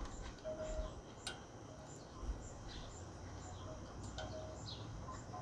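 Outdoor ambience of chirping wildlife: a short, high chirp repeating about twice a second, a few lower calls, and some faint clicks.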